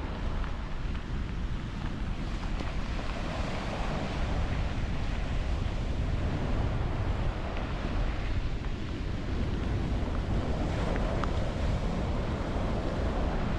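Ocean surf washing onto the beach, swelling louder as waves break, with wind rumbling on the microphone.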